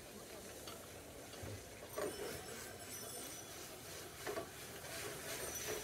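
Oil sizzling in a hot steel frying pan on a gas burner, with a few sharp metal clinks, about two seconds in, past four seconds and near the end.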